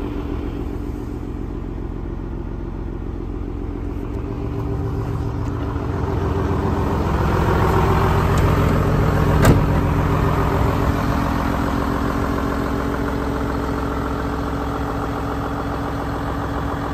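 Renault T430 truck's 11-litre six-cylinder diesel idling steadily in neutral. It grows louder for a few seconds in the middle, with one sharp knock about nine and a half seconds in.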